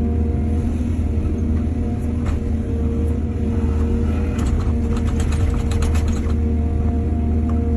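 Excavator's diesel engine running steadily under load, with a quick run of rattling knocks from about four to six seconds in.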